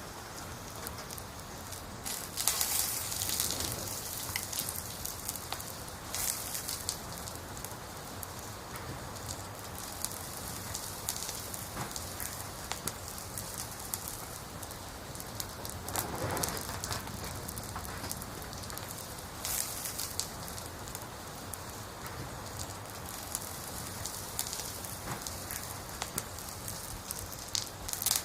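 Firewood burning in a campfire: a steady crackling hiss with many small sharp pops, and a few louder bursts of crackling, the biggest about three seconds in.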